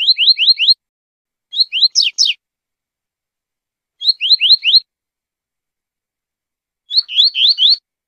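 Double-collared seedeater (coleirinho) singing: four short phrases, each a quick run of four or five rising whistled notes, spaced about two seconds apart.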